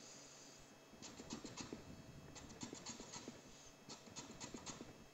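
Cucumber being slid down a plastic Japanese mandoline's blade, making faint quick scraping slicing strokes in three short runs.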